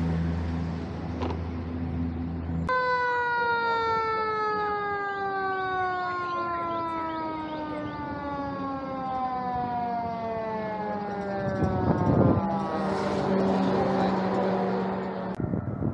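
A steady low engine hum cuts off abruptly about three seconds in. A siren then sounds as one long tone, sliding slowly and evenly down in pitch for about nine seconds. Near the end it is overtaken by street traffic noise.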